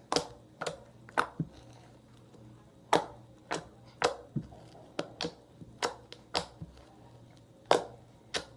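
Yellow fluffy slime being poked and squished by hand, giving irregular sharp sticky clicks and pops about every half second.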